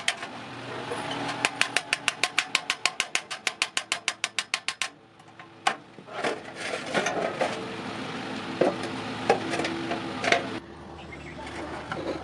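Iron being hammered: a fast, even run of metal strikes, about eight a second, then slower, irregular clanks and knocks with a ringing tone from the struck iron.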